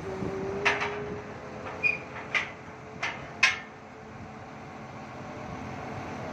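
Sharp metal knocks and clanks, five of them over about three seconds, as a steel crane man basket is climbed into, over a steady machine hum.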